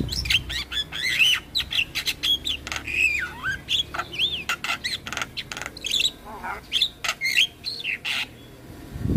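Javan myna (jalak kebo) in full song: a fast, chattering run of sharp clicks and harsh squawks mixed with short whistled notes that bend up and down, easing off briefly near the end.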